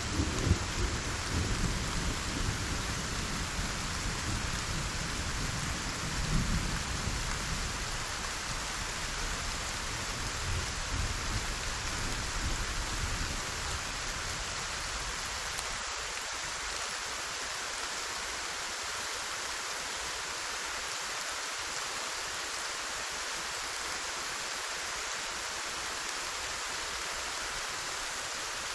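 Steady heavy rain with thunder rumbling low through the first half, swelling twice and then rolling away, leaving only the even hiss of the rain.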